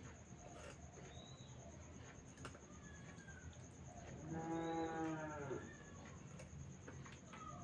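A cow moos once, starting about four seconds in: a single call about a second and a half long, the loudest sound here.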